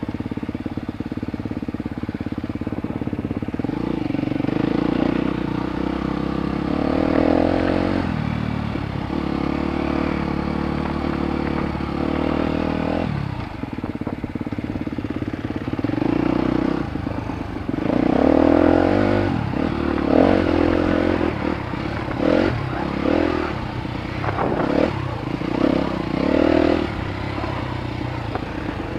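Suzuki DR-Z250 single-cylinder four-stroke dirt bike engine, heard from the rider's helmet, revving up and easing off again and again with the throttle as it is ridden along a trail. Rattles and knocks come from the bike over rough ground.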